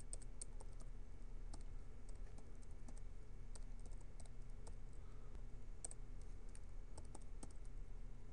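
Computer keyboard typing: quick, irregular keystroke clicks, over a steady low hum.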